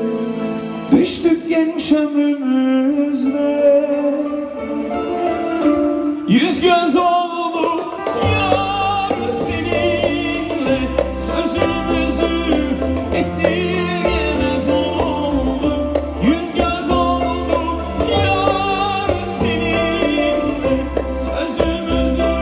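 Live band playing a Turkish song, with acoustic guitar, violin, clarinet and drums, and a male singer singing with vibrato into a microphone. The voice comes in about six seconds in, and the bass and drums fill out the band about two seconds later.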